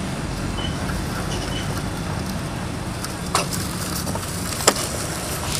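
A metal template frame scraping as it is pushed along wet plaster of Paris in a corrugated ceiling-strip mould, over a steady low background rumble, with two sharp clicks in the second half.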